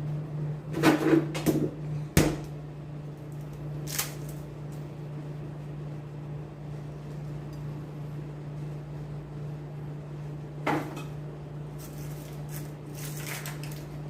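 Ice being fetched and put into a glass: a few knocks and clatters about a second in, a sharp knock at two seconds, single clicks at four and near eleven seconds, and a run of small clinks near the end, over a steady low hum.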